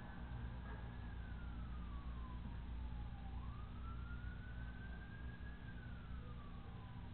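Faint wailing emergency-vehicle siren, a single tone sliding slowly down, climbing back up about three seconds in, and sliding down again near the end, over a steady low hum.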